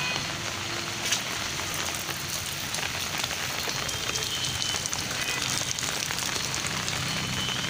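Steady rain falling on pavement and standing water: an even hiss dotted with scattered drop ticks.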